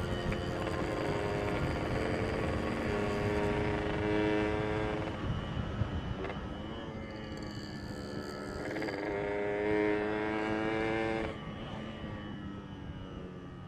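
Yamaha RX-King two-stroke single-cylinder motorcycle engine running under way, with road and wind noise. The engine note shifts a couple of times and the level drops about eleven seconds in.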